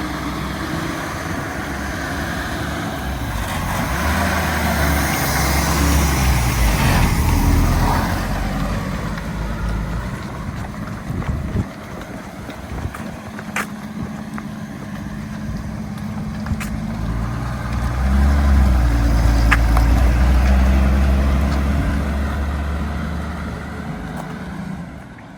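1965 Ford Mustang's engine pulling away under throttle, its pitch rising as it speeds up, easing off, then accelerating again. A few sharp clicks or knocks sound in between.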